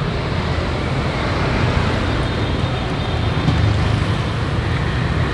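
Road traffic noise: a steady low rumble of passing vehicles, swelling a little midway.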